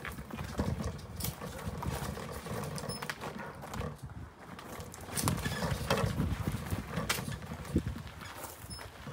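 Footsteps walking up a steep lane, irregular scuffs and knocks on the path surface.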